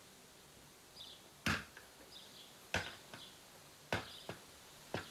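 Four sharp knocks, evenly spaced a little over a second apart, with faint bird chirps in between.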